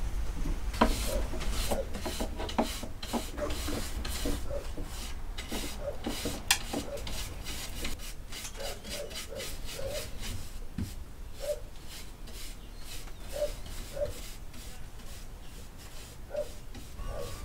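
A small paintbrush scraping back and forth across the wooden floor of an old radio cabinet in many quick, repeated strokes.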